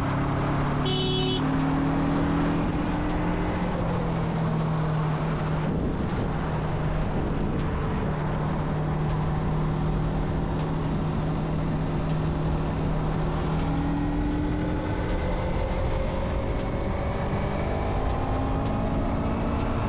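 Sport motorcycle engine droning at highway cruising speed under heavy wind and road noise, its pitch rising a little in the second half.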